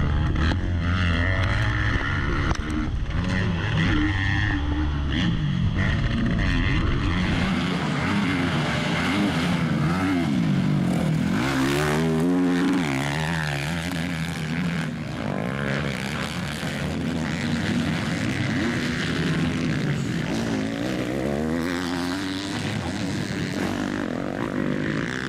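Motocross dirt-bike engines revving hard and changing pitch up and down through gear changes and corners. For the first several seconds it is the rider's own bike heard close up. After that, several bikes are heard from trackside, their engine notes rising and falling as they race past.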